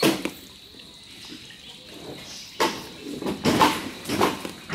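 Giant panda chewing bamboo: a sharp crack of a stalk at the start, then, after a quieter stretch, a run of crunching bites in the second half.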